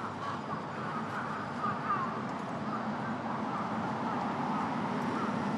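A roosting flock of crows cawing in a dense, overlapping chorus, stirred up by a laser shone into their tree, over a steady rumble of city traffic.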